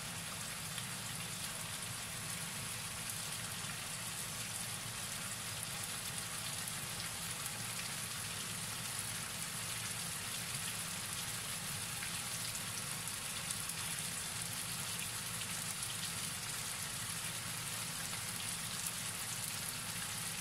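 Cubed chicken breast frying in hot oil in a pan: a steady sizzle with fine crackling, the meat being seared.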